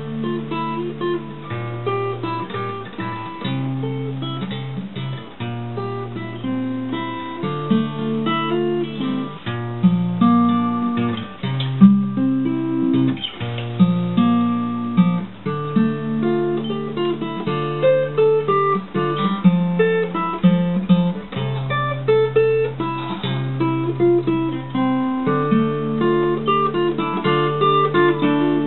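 Background music: acoustic guitar playing a continuous run of separate plucked notes over steady bass notes.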